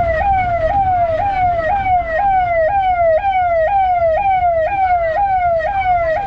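Ambulance siren sounding in quick repeated falling sweeps, about two a second, over the low rumble of traffic.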